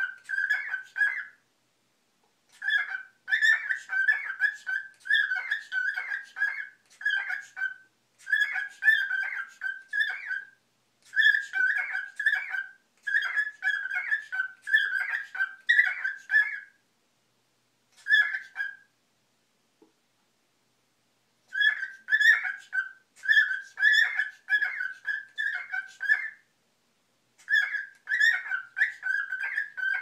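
Male cockatiel warbling and chattering to its reflection in a mirror: quick runs of short chirping notes in phrases of a second or two, broken by short pauses and one longer silence about two-thirds of the way through.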